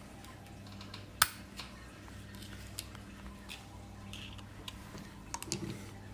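Small clicks and taps of metal parts being handled while a motorcycle rear brake master cylinder is reassembled, with one sharp click about a second in.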